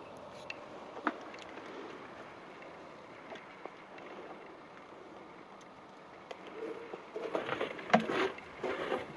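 Low steady background hiss with a few faint clicks, then a couple of seconds of irregular rustling and knocks near the end, typical of a handheld camera being moved about.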